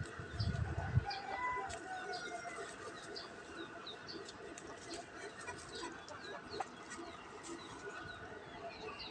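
Chickens clucking in the background, with a steady run of short high peeping chirps, about two or three a second.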